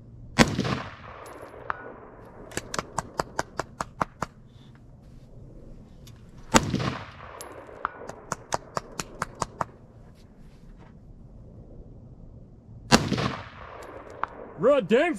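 Three AR-15 rifle shots, about six seconds apart. About two seconds after each of the first two, a quick run of about eight sharp ticks follows.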